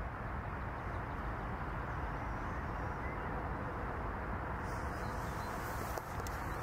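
Steady outdoor background noise, a low even rush with no distinct events; a faint high hiss and a few small clicks come in about two-thirds of the way through.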